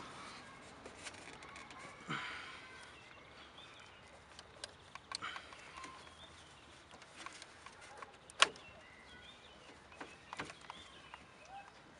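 Scattered small metallic clicks and clinks of a socket and extension bar being turned by hand on a bolt in a car's engine bay. A brief scrape comes about two seconds in, and one sharp click comes about eight seconds in.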